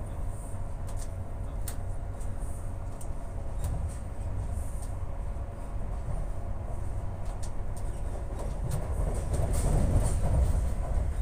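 Inside a moving high speed passenger train: a steady low rumble of the wheels on the track, with scattered sharp clicks. The rumble grows louder about nine seconds in, then eases near the end.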